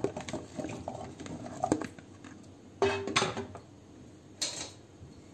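Chunks of watermelon rind tipped from a bowl into an empty saucepan, tumbling in with light clattering against the pan, and a sharper ringing clink about three seconds in.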